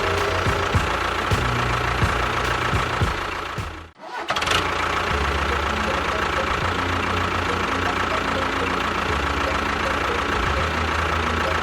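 A machine running steadily, with a constant whine over a low rumble; it cuts out briefly about four seconds in and then starts again.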